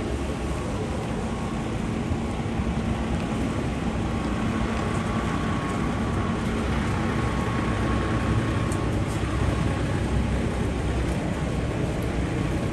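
Busy city street ambience: a steady rumble of road traffic, with a low, even hum standing out for several seconds in the middle.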